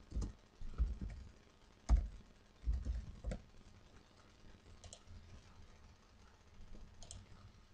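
Typing on a computer keyboard for about three seconds, then two single clicks a couple of seconds apart.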